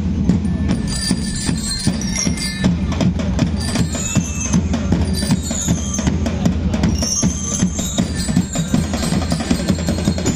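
School drum and lyre band playing: marching drums beat a steady, driving rhythm with a booming bass drum, while bell lyres ring out short high melody notes.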